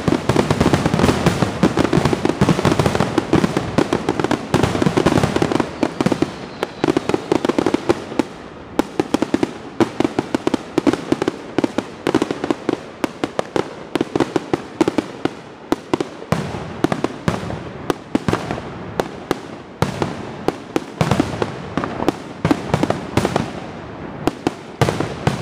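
Fireworks grand finale: a dense, continuous barrage of aerial shells bursting, densest in the first several seconds, then thinning to a rapid run of separate sharp bangs and crackles.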